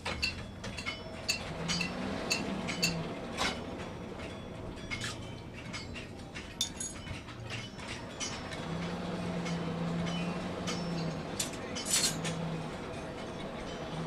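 Irregular metallic clinks and light ringing taps, steel striking steel, many small strikes a second or so apart at varying loudness.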